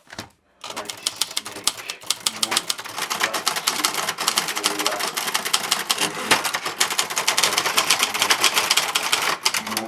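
Typewriter keys struck in fast, continuous typing: a dense run of sharp clacks that starts about half a second in, grows louder over the first few seconds, and breaks off just before the end.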